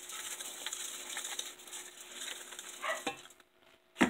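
Dry barbecue rub shaken from a shaker container onto raw chicken wings: a grainy rattling with many tiny ticks that stops about three seconds in. A single sharp knock comes near the end.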